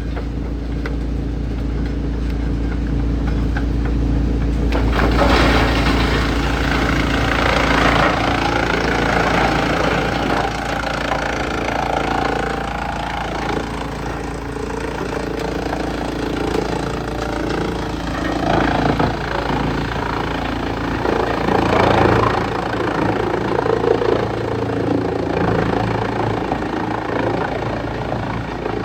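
Wood chipper running with its engine's steady drone; about five seconds in a rougher, noisier sound joins and keeps rising and falling, as wood is chipped.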